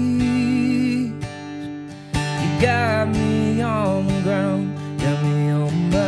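Acoustic guitar strummed in a slow country ballad, with a man singing a wavering melody over it. The strumming drops away briefly about a second in, then comes back.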